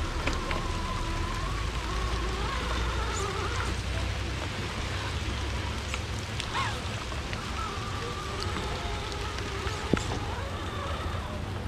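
Steady rain falling, with a faint wavering whine underneath and a single sharp knock about ten seconds in.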